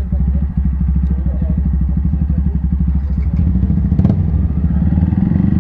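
Motorcycle engine idling with a steady, rapid train of firing pulses. A little past three seconds in it runs somewhat heavier, and a single sharp click sounds about four seconds in.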